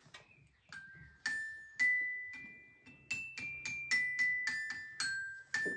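Glockenspiel playing a simple melody one note at a time. The notes are high, clear and ringing, and begin about a second in.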